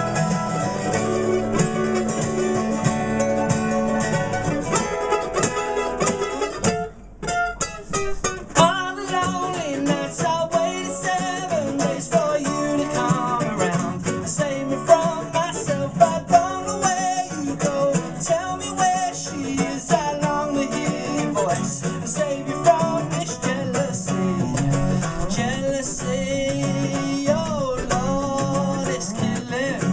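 Live acoustic folk band playing: nylon-string and steel-string acoustic guitars with a mandolin. After a brief drop about seven seconds in, a man sings over the strummed guitars.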